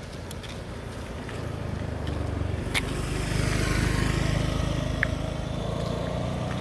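A motor vehicle passing on the road, its engine hum swelling to a peak about four seconds in and then easing off. A short sharp click and a brief high chirp cut through it.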